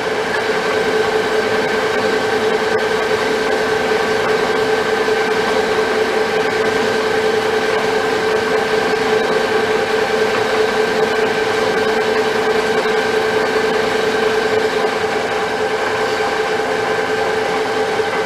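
Metal lathe running at a steady spindle speed with a constant gear whine, turning a round steel workpiece held in the chuck.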